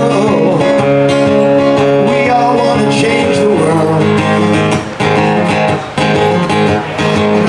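Live music from a solo performer playing guitar through a PA, with some singing.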